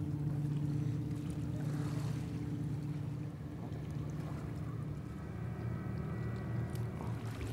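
Steady low motor drone, like a boat engine running, with a few faint clicks about two seconds in and again near the end.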